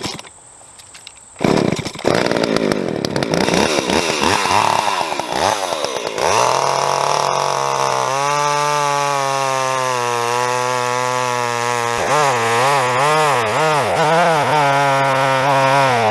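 Jonsered 520SP two-stroke chainsaw engine firing up about a second and a half in and running unevenly at first. It then settles into a steady run and is revved up and down repeatedly in the last few seconds. It keeps running now that a fuel line pinched by the top cover has been rerouted.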